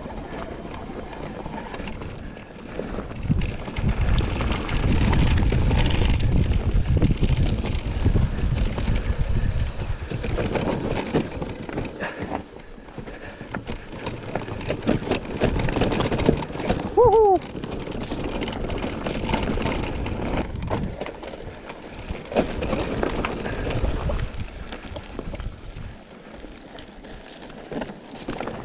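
Mountain bike descending a rough enduro trail: tyres rumbling and crunching over stones, the bike rattling and clattering, and wind buffeting the microphone. A brief falling squeal comes a little past halfway.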